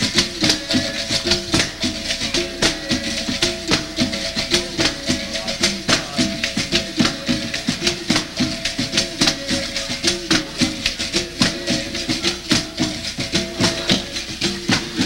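Capoeira music from the roda: berimbaus twanging a repeating rhythm of short notes that step between pitches, with the steady rattle of caxixi shakers.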